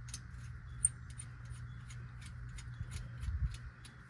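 Light scattered clicks and taps of a turbocharger being handled and worked into place on a Cummins ISX engine, with one sharper click just under a second in and a dull bump a little past three seconds. A steady low hum runs underneath.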